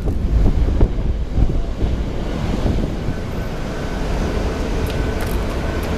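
Strong wind buffeting the microphone in gusts, a heavy low rumble. A faint steady whine comes in about halfway through.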